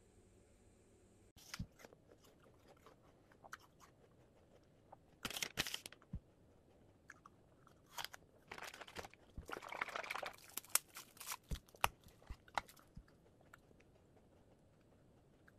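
A person eating crunchy food close to the microphone: crisp bites and chewing in irregular clusters, with scattered small clicks between them.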